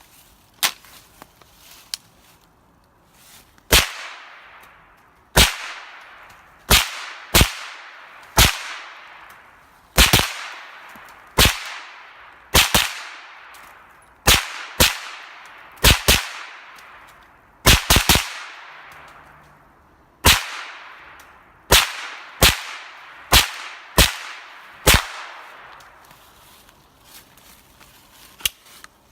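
Suppressed 9mm shots from a CZ Scorpion Evo carbine wearing a home-built titanium suppressor with freeze-plug baffles. About twenty single shots are fired over some twenty seconds at an uneven pace, now and then two or three in quick succession, each followed by a fading echo.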